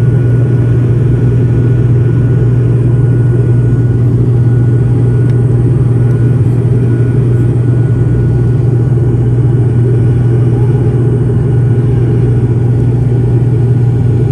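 The engines and propellers of an ATR turboprop airliner, droning steadily in flight, heard inside the passenger cabin. The drone is a loud, low, even hum with a faint high whine over it.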